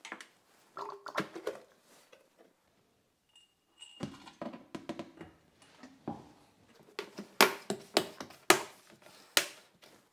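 Plastic S-shaped airlock on a bucket fermenter of beer gurgling and plopping as carbon dioxide pushes through its water. The short wet pops come irregularly and bunch up loudest near the end: the sign of active fermentation.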